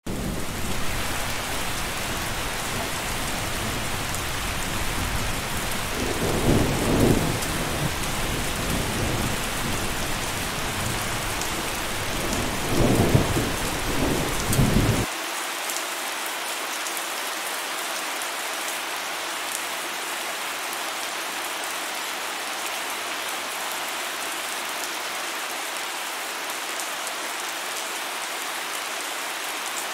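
Steady rain falling, with low thunder rumbling under it through the first half, swelling about six seconds in and again about thirteen seconds in. The rumble cuts off suddenly about halfway, leaving only the even hiss of the rain.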